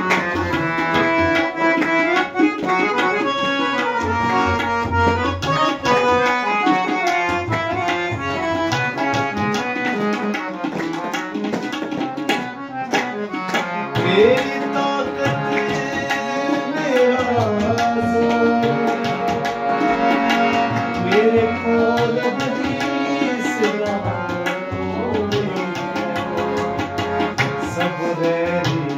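Tabla and a harmonium playing a Punjabi Christian devotional song, the tabla keeping a steady rhythm under the harmonium's reedy melody. A man's singing voice comes in about fourteen seconds in.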